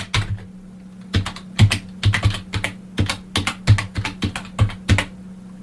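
Computer keyboard being typed on: an irregular run of quick key clicks as a line of text is entered, over a steady low hum.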